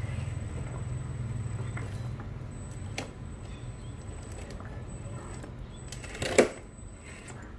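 Small electric motor and geared drivetrain of a radio-controlled Toyota FJ Cruiser crawler running with a steady low buzz that fades about three seconds in, with a click around then. A loud, brief noise comes near the end.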